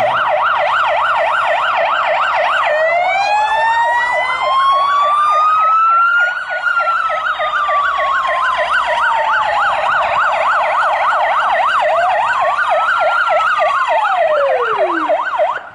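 Fire engine sirens: a fast yelp rising and falling about four times a second, with a second siren wailing slowly up and down over it twice. Both cut off suddenly at the very end.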